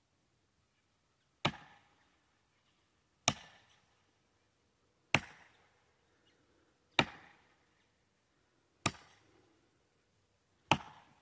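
Axe blows chopping into the base of a standing tree trunk to fell it: six sharp strikes at an even pace, about one every two seconds, each ringing out briefly.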